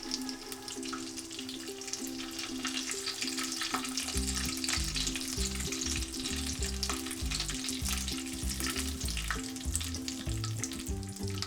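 Prawn-and-potato nuggets sizzling steadily as they shallow-fry in hot oil in a frying pan.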